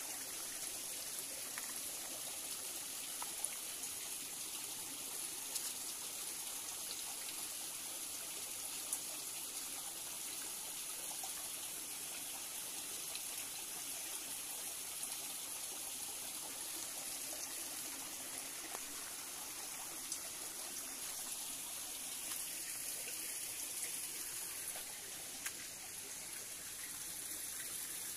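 A small rocky forest stream trickling and flowing steadily, with a few faint, short ticks scattered through it.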